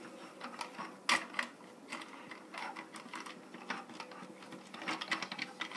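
Irregular sharp clicks and rattles of hard plastic toy parts as a minifigure is pushed into the cab of a toy truck, the sharpest click about a second in.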